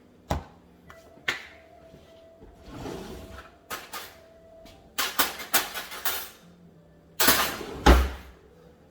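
Kitchen handling noises: scattered sharp knocks of containers and utensils, a quick run of clatters about five seconds in, then a longer scraping rustle ending in a loud knock near the end.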